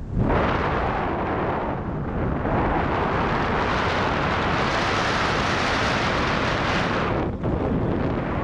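Wind rushing over the microphone in flight under a paraglider: a steady, loud rush that dips briefly at the start and about seven seconds in.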